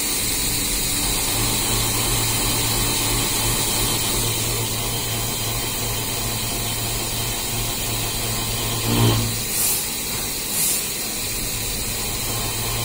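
CNC vertical machining centre milling under flood coolant, with the spindle at about 3300 rpm: a steady machine hum under a constant hiss of coolant spray. About nine seconds in there is a brief knock, followed by two short hissing bursts.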